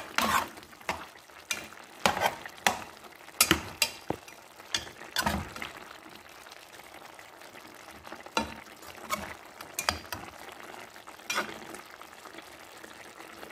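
Metal ladle clinking and scraping against a pot while stirring chicken adobo simmering in its sauce, over a faint steady bubbling hiss. The clinks come thick and fast for the first several seconds, then only now and then.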